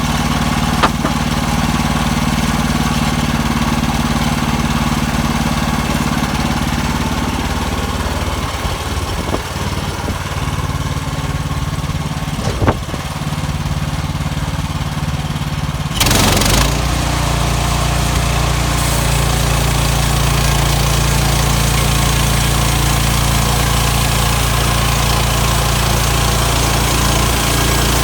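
Gas engine of a Woodland Mills portable band sawmill running steadily while sawing pine. Just past halfway a short burst of noise, after which the engine runs with a deeper, louder note.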